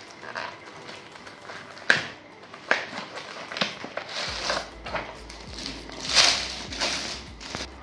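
Packaging being handled: a few sharp clicks and taps of a cardboard box being opened, then the plastic wrap around a tablet cover crinkling and rustling as it is pulled out, loudest about six seconds in.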